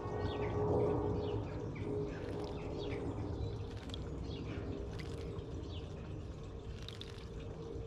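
Small garden birds chirping: short, high, falling notes about twice a second, over a steady low background rumble and faint hum.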